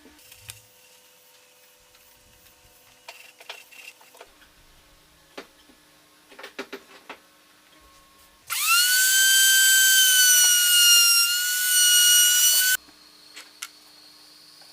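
Electric power tool motor spinning up suddenly to a high-pitched whine, running steadily for about four seconds with a slight dip in pitch partway, then cutting off. Light knocks and clicks of handling wood and tools come before it.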